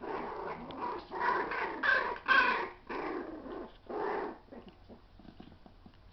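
Miniature schnauzer puppies play-fighting and growling in a run of short, rough bursts, the loudest about two seconds in. They fall quiet after about four seconds.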